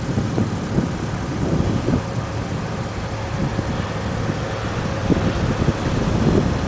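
Wind buffeting the camera's microphone: an uneven low rumble that swells and dips in gusts, with a faint steady hum underneath.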